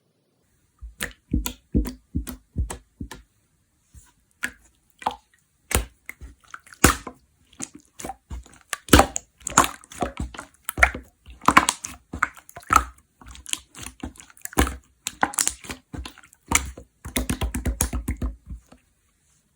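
Slime being squished, poked and stretched by hand, making sticky clicks and pops in irregular bursts, with a quick run of clicks near the end.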